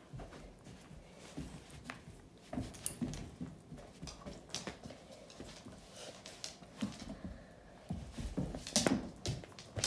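Hungarian vizsla playing tug of war with a blanket: irregular scuffling with clicks of its claws on a hardwood floor, busier and louder near the end.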